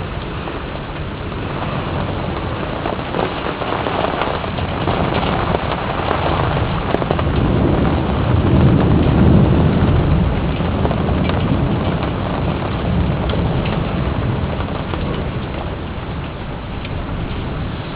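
Rain falling steadily, with a low rumble that builds and fades around the middle.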